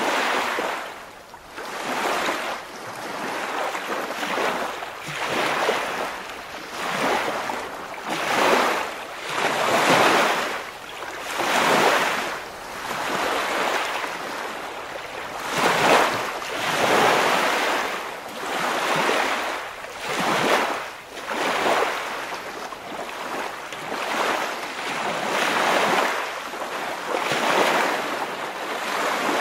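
Waves washing in a steady series of surges, each swelling and falling away, about one every one and a half to two seconds.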